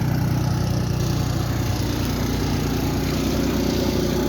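Small engine of a snow-clearing machine running steadily at a constant speed.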